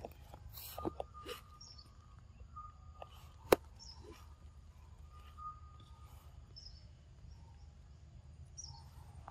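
A macaque eating soft fruit: scattered bites and wet smacks, with one sharp click about three and a half seconds in. Birds chirp briefly now and then over a faint steady insect tone.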